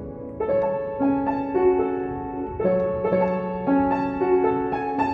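Upright piano played at a slow pace: a melody of single notes, a new one about every half second, over longer-held low bass notes, with the notes ringing on into each other.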